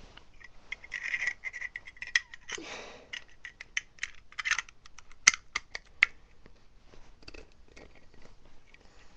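Metal insert of a Zippo-style replica lighter being pushed back into its case: scraping of metal on metal and a run of small sharp clicks, the loudest click a little past the middle.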